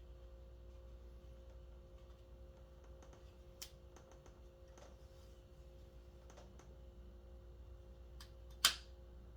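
Small clicks and taps of a screwdriver and the small metal and plastic kill-switch parts being handled and screwed together, with one sharper click near the end.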